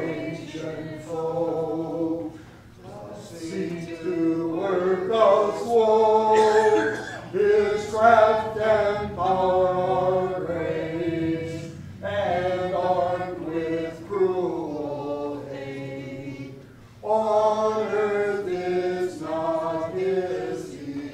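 A small congregation singing a hymn together, unaccompanied, in sung phrases with short breaks between lines.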